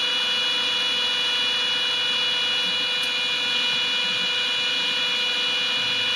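Small cooling fans on a Peltier cooler's heat sinks running steadily: an even rushing hum with constant high tones, unchanged throughout.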